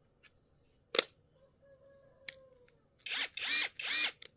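Bauer brushless 3/8-inch cordless impact wrench run free in three short trigger pulls near the end, its motor whine rising and falling with each pull. A single sharp click comes about a second in.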